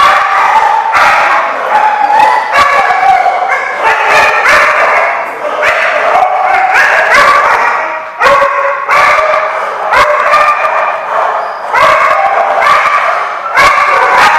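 A group of dogs barking and yipping, many barks overlapping almost without a break.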